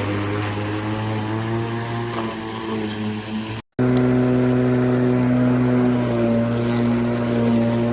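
Litheli 18-inch 40V brushless cordless lawn mower running, its motor and blade giving a steady hum with a low pitch. The sound cuts out briefly about halfway through, then the hum returns a little higher and steadier.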